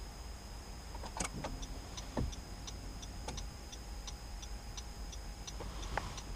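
Low rumble inside a Honda Accord's cabin as the car rolls, with a few soft knocks. From about a second and a half in there is a light, regular ticking about three times a second.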